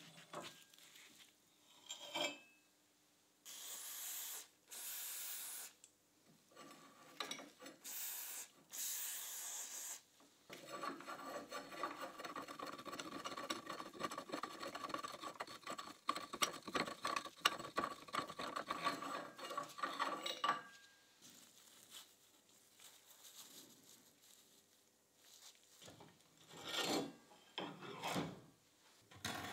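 Rusty steel pipe-vise parts being worked by hand while the vise is dismantled: metal rubbing and rasping on metal. A few short strokes come early, then a long continuous rasping stretch of about ten seconds through the middle with a faint ringing tone in it. Scattered scrapes and clinks follow near the end.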